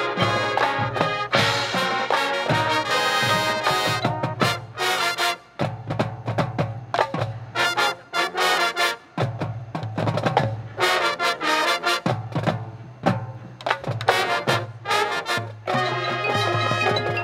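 High school marching band playing live: sustained brass chords, then a stretch of short, sharp accented hits with percussion from about four seconds in, with full brass chords returning near the end.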